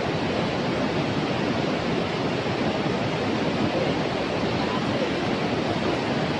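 Steady rushing of a fast-flowing river running in rapids over rocks.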